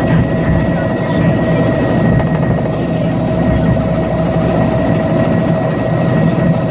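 Helicopter in flight heard from inside the cabin: steady, loud rotor and engine noise with a constant high whine over a dense low rumble.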